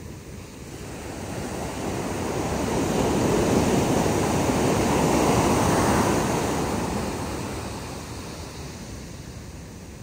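Ocean surf on a sandy beach: a wave breaks and washes up the sand, its rush swelling over the first few seconds, loudest around the middle, then fading back to a low steady wash.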